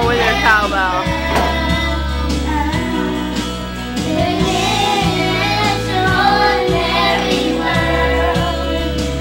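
A song playing with voices singing along, female voices among them, over a steady bass line.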